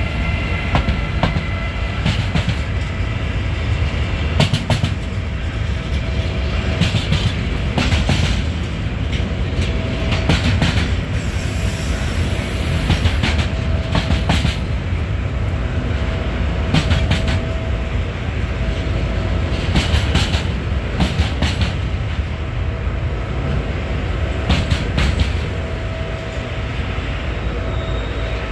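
Freight train rolling past: a Siemens Vectron electric locomotive followed by intermodal pocket wagons loaded with lorry trailers. A steady low rumble, with irregular clacks as the wheels run over the track.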